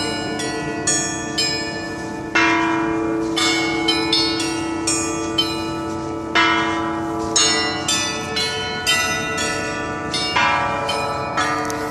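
Melbourne's Federation Bells, a public installation of fixed bronze bells, playing a melodic sequence: about one or two strikes a second, often several bells together, each note ringing on under the next.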